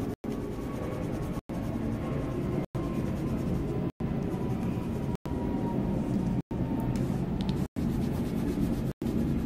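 Steady low rumbling background noise, broken by brief moments of total silence about every second and a quarter.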